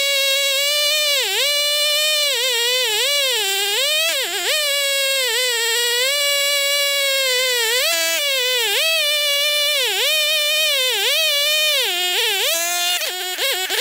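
Chainsaw running at full throttle as it rips lengthwise through a chestnut log in a chainsaw mill. Its high, steady engine pitch dips again and again as the saw bogs under the load of the cut and then recovers.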